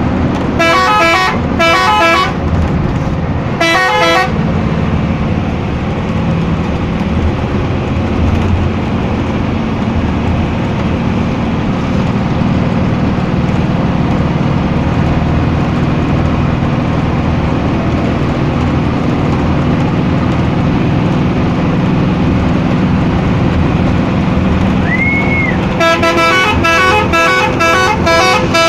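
Bus telolet horn, a multi-tone air horn, sounding in quick stuttering blasts about a second in and again at about four seconds, then in a rapid string of about three blasts a second near the end. Between the blasts the bus engine drones steadily.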